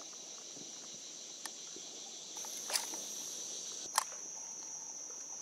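Steady high-pitched insect chorus droning without a break, with three short sharp clicks; the two loudest come about three and four seconds in.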